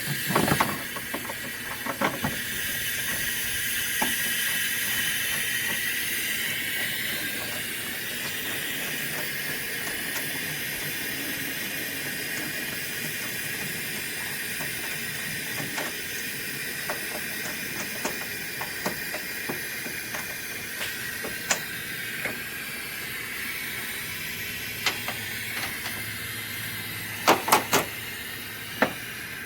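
A steady high hiss, strongest a few seconds in and easing a little after, with scattered sharp clicks and a short cluster of louder knocks near the end.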